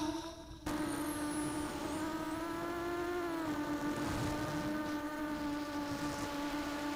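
Makerfire Falcon FPV300 racing quadcopter's brushless motors and propellers in fast forward flight, a steady high-pitched buzzing hum. The pitch rises slightly around three seconds in, then settles back.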